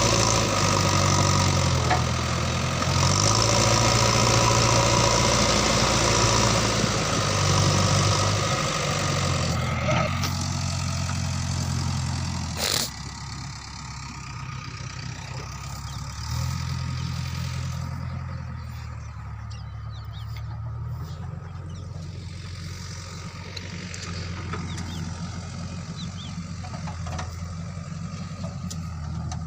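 JCB backhoe loader's diesel engine running as it works, loud and busy for the first ten seconds or so, then settling to a lower, steadier run for the rest. A single sharp knock comes about 13 seconds in.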